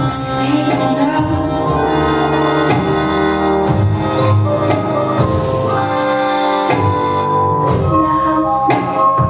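Recorded music with a steady beat.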